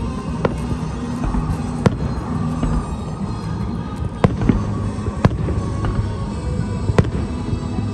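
Aerial fireworks shells bursting overhead: about half a dozen sharp bangs at uneven spacing, with music playing underneath.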